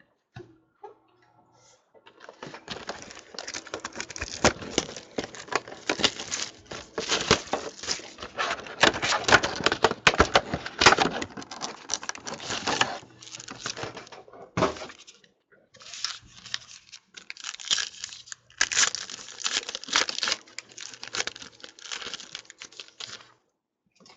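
A trading-card pack wrapper being torn open and crinkled by hand, in two long stretches of crackling with a short pause about halfway through.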